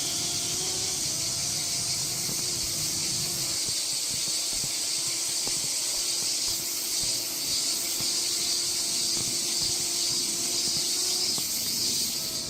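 Small quadcopter drone in flight: a steady high whir and hiss from its spinning propellers, with a faint low motor hum underneath.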